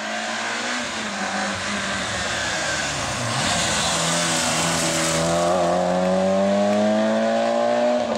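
Rally car engine at high revs, with a rushing noise partway through. It then climbs steadily in pitch as the car accelerates hard, and drops suddenly right at the end.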